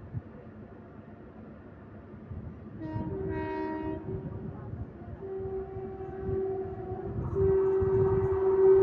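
WAP-4 electric locomotive's horn sounding: a short blast about three seconds in, a longer one, then a long steady blast from about seven seconds in, growing louder as the train approaches at speed.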